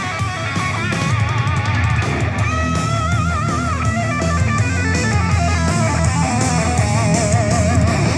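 Rock music played back through a portable Bluetooth speaker: an electric guitar lead with wavering vibrato notes over bass and drums.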